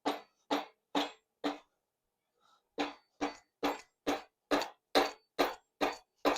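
Rubber mallet tapping around a Honda K24A2 engine's bearing girdle, about two blows a second with a short pause midway. Each blow has a short low ring. The girdle is stuck on with sealant and the blows are breaking it loose from the block.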